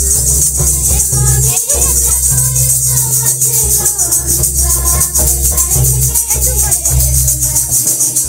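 Munda welcome song (swagat geet) for the wedding couple: singing over a fast, even shaker rattle and a heavy sustained bass, played loud and without a break.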